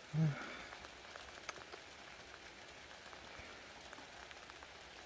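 Heavy rain falling steadily, with scattered drops ticking on nearby surfaces. A brief low voice sounds just after the start.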